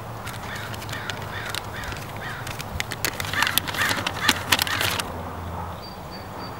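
A folded sheet of lined notebook paper being unfolded by hand, crackling and crinkling, loudest about three to five seconds in. A bird calls several times in quick succession early on.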